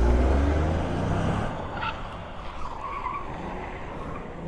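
Vehicle engines accelerating hard and pulling away, a deep rumble that is loudest at the start and fades over the first second and a half, leaving quieter road and engine noise.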